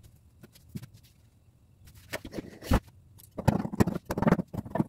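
Scissors cutting through lace fabric around a paper pattern, a run of quick snips in the last second and a half. Before that, light handling sounds and a single knock about two-thirds of the way through.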